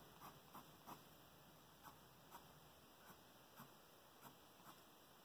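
Faint, soft scratches of a colored pencil shading on sketchbook paper, short strokes coming unevenly about every half second.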